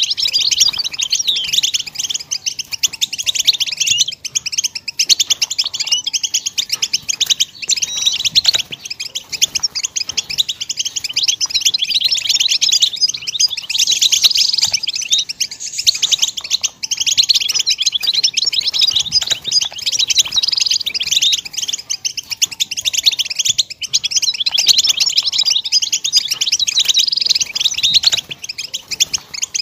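European goldfinch song: rapid, high-pitched twittering and trills running on without a pause, the kind of chirps played to teach a young goldfinch its song.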